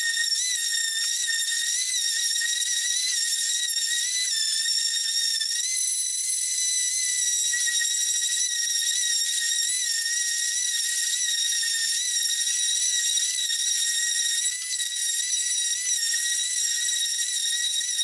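DeWalt random orbital sander running on a wooden slat with 120-grit paper: a steady high whine whose pitch wavers slightly as the pad is pressed and moved along the wood.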